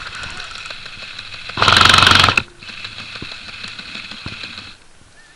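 Airsoft electric gun (AEG) firing one full-auto burst of just under a second, a fast rattle of shots about one and a half seconds in. A fainter, steady mechanical rattle runs beneath it and stops near the end.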